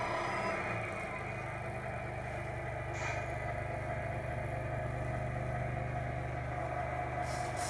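Tamiya Grand Hauler radio-controlled truck running, a steady motor drone with a fainter whine above it, and two short ticks, one about three seconds in and one near the end.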